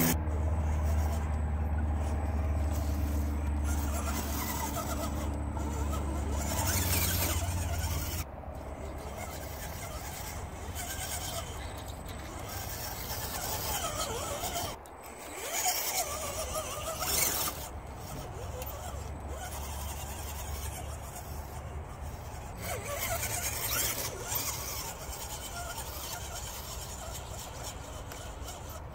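Electric drivetrain of an Axial SCX10 scale RC crawler whining as the truck crawls over logs, its motor and gears rising and falling with the throttle. A steady low rumble underneath cuts off suddenly about eight seconds in.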